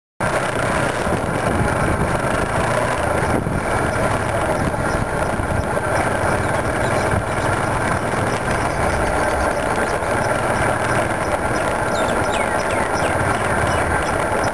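Motorcycle engine running steadily while riding, mixed with wind and road noise; it cuts in abruptly at the very start.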